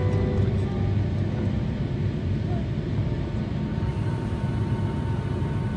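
Background music fading out within the first second, leaving the steady rumble of a jet airliner's cabin noise in flight.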